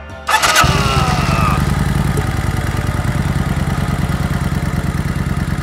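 V-twin motorcycle engine kick-started: a sudden hit with a short falling ring about a third of a second in, then the engine catches and idles with a steady, even pulse.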